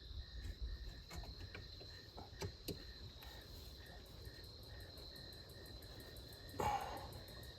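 Faint, scattered clicks and knocks of a wrench tightening the bracket bolt on a golf cart's throttle cable bracket, with a brief louder scrape near the end, over a steady high insect-like trill.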